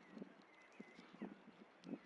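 White storks' bills clacking: four faint, short, hollow knocks spaced about half a second apart, with a small bird's thin chirps behind them.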